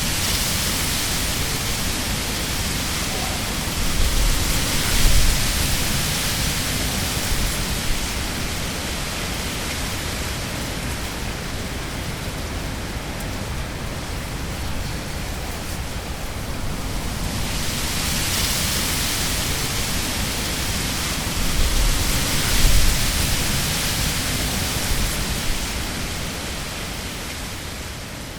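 Wind blowing through rushes: a steady rustling hiss that swells in two gusts, about five seconds in and again around twenty-two seconds, with a low rumble at each peak.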